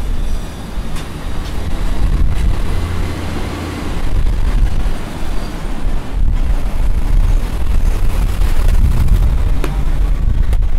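Street traffic passing steadily, with a heavy low rumble of wind on the microphone.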